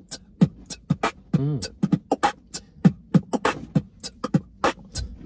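Beatboxing at a hip-hop tempo: vocal kick drums, snares and hi-hat clicks in a steady rhythm, with a bending, wobbling vocal bass sound about a second and a half in.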